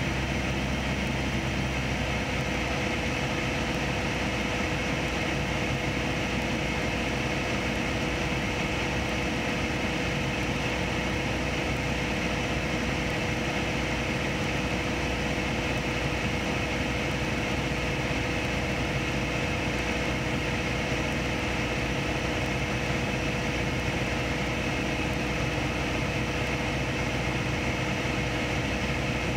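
Cabin drone of a Piper PA-28 Archer's four-cylinder Lycoming engine and propeller, steady and unchanging during a descent on approach, with a steady tone joining about two seconds in.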